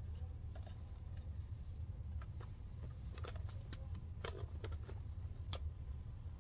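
Soft rustling and a few light clicks from a stretchy fabric mermaid tail being handled and unfolded, over a steady low hum.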